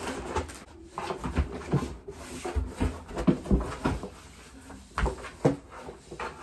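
Large cardboard shipping box being opened by hand: the flaps are pulled back and the carton creaks and thumps in irregular knocks.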